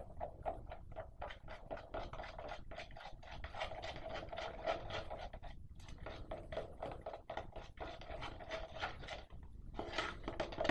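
Slime mixture being stirred in a bowl: rapid, steady scraping strokes, about five a second, with two short pauses.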